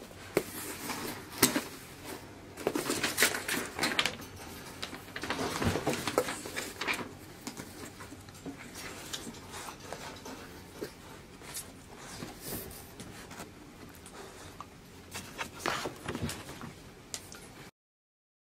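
Cardboard box being handled and opened by hand: irregular rustling, scraping and sharp taps of cardboard and packaging. It cuts off suddenly near the end.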